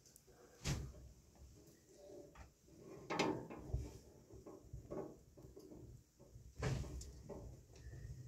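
Faint knocks and clatters: three louder ones about a second in, around three seconds and near seven seconds, with softer scattered knocking between.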